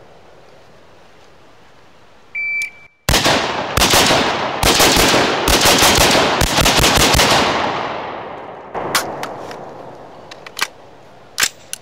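A shot timer beeps once, then a 5.56 short-barreled carbine fires about fifteen rapid shots in quick strings of one to five rounds over roughly four and a half seconds, the reports echoing and dying away. A few sharp clicks follow near the end.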